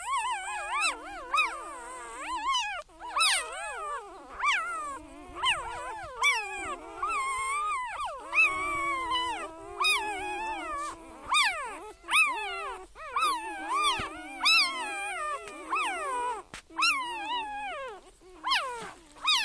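An animal howling in a long run of calls with a wavering, sliding pitch, broken by short pauses.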